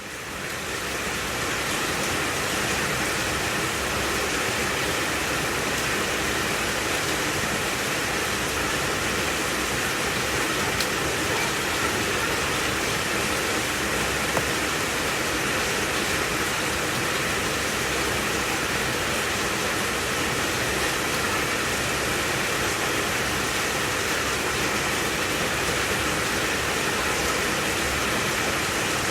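Heavy rain falling steadily in a dense, even hiss, fading in over the first second or two.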